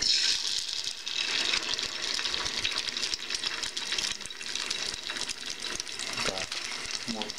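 Raw egg sizzling in a hot frying pan inside a stainless steel heart-shaped egg ring. The crackling starts the moment the egg hits the pan and carries on steadily.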